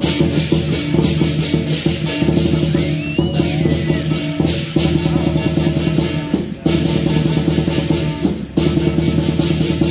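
Lion dance drum and cymbal music: a drum and crashing cymbals beating a fast, dense rhythm, with a few brief breaks between phrases.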